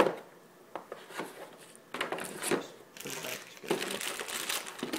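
Unboxing handling noise: a sharp knock as the router is set down in its cardboard box, then, from about two seconds in, rustling and crinkling of plastic wrapping and cardboard packaging that grows busier toward the end.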